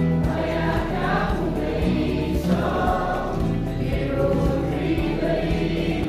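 Mixed choir of young men and women singing a hymn together, accompanied by a guitar.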